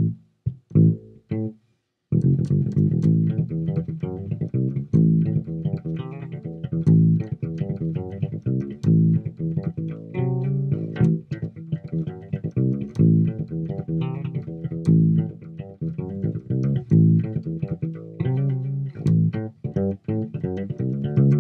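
Homemade passive P/J electric bass with flatwound strings, played with the fingers through a Peavey Basic 112 combo amp and heard through a laptop microphone. It plays a line of plucked notes. After a short phrase it stops briefly near the start, then plays on without a break.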